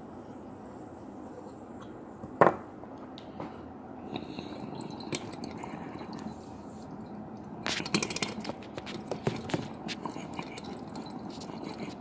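Water bubbling and crackling inside a glass dab rig as a dab is drawn through it, starting about four seconds in and busiest a little past the middle. A single sharp click comes a couple of seconds before the bubbling starts.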